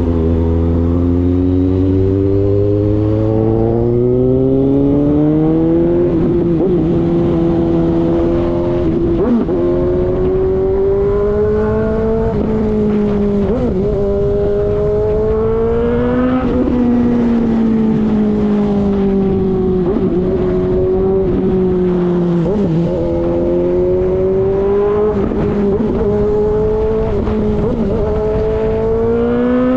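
Suzuki GSX-S750's inline-four engine, loud through a JBK slip-on exhaust with its baffle removed, under way: the engine note rises and falls with the throttle, with a sudden dip in pitch several times as gears are changed.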